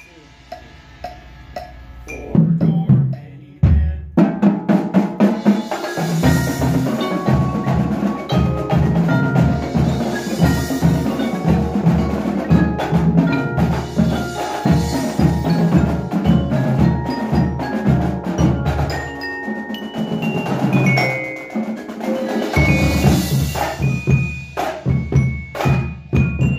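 Marching percussion ensemble playing together: marching drums (snares, tenor quads, bass drums) with marimba and other keyboard mallet instruments carrying pitched lines, plus auxiliary percussion such as cymbals. Starts with a few soft taps, then loud drum strokes about two seconds in lead into full ensemble playing, with dense rhythmic drumming under quick mallet notes.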